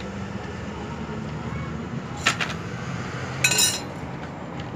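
Metal tractor brake plates clinking as they are handled and set down on one another: one sharp clink about two seconds in, then a brief ringing clatter of metal about a second later.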